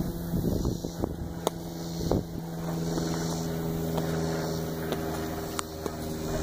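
A small engine drones steadily at one even pitch, with wind buffeting the microphone and a few faint clicks.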